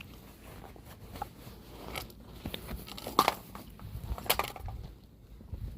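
Scattered handling noises: light clicks, crinkling and rustling, with two louder sharp clacks about three and four seconds in. No motor is running.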